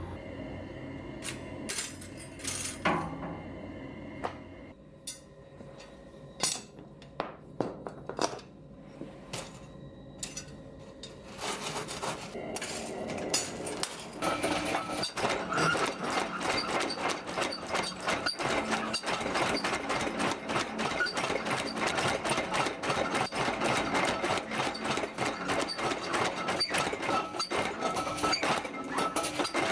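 Hammer blows on steel: scattered single strikes at first, then from about twelve seconds in a fast, continuous run of hammering, as when a dome is being forged.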